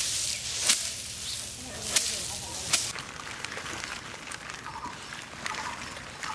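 Bundles of dried mustard stalks beaten against a wooden plank to thresh out the seed: four sharp whacks, each with a dry rattle of pods, in the first three seconds. After that, softer scattered rustling and small clicks as hands sort through fish.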